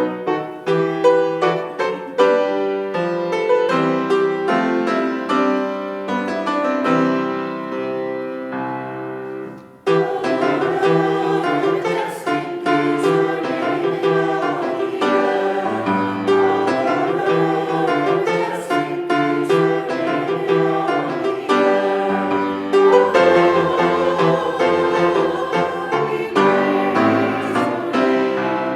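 Piano music. About ten seconds in it pauses briefly and then resumes with a fuller, denser sound.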